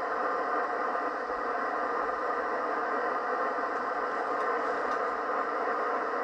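Steady static hiss from an HF ham radio receiver's speaker, tuned to 3.853 MHz lower sideband in the 75-metre band: open band noise between transmissions, cut off sharply above the sideband filter's passband.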